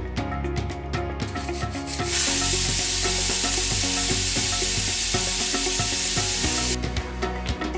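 Pressure cooker whistle venting steam: a loud steady hiss that starts faintly about a second in, swells at about two seconds and cuts off sharply near the end. It is the sign that the cooker has come up to pressure, one of the whistles counted to time the cooking.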